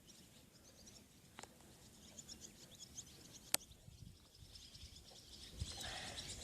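Faint bird chirping: small birds calling in quick high chirps. Two brief sharp clicks come about a second and a half and three and a half seconds in.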